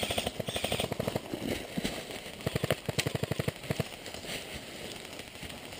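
Airsoft guns firing in rapid full-auto bursts, a fast run of sharp clicking shots about fifteen a second. The bursts break off and restart several times and die away near the end.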